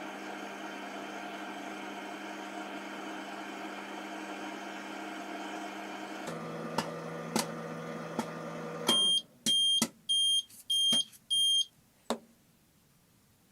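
Delfa AMW 23DGB microwave oven running with a steady hum; about six seconds in the hum drops lower with a few clicks, then stops, and five short high beeps signal the end of the heating cycle, followed by a single click.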